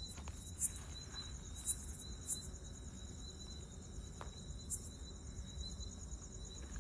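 Crickets chirping in a steady high trill, with a faster pulsing chirp above it, and a few faint clicks.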